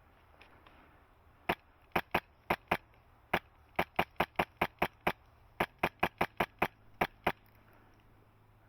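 HPA airsoft rifle with a Polarstar F2 engine firing about twenty sharp semi-auto shots in quick strings, up to about five a second, starting about a second and a half in and stopping before the end.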